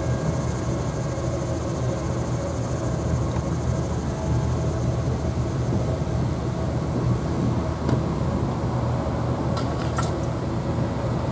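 ALCO diesel road-switcher locomotive's engine running steadily as it pulls slowly across a steel truss bridge, heard from a distance as a low, even drone. A few sharp clicks come in near the end.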